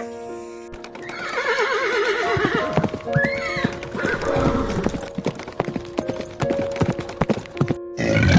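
A horse whinnying with a wavering, falling call, followed by hooves clip-clopping in a run of sharp knocks, over background music.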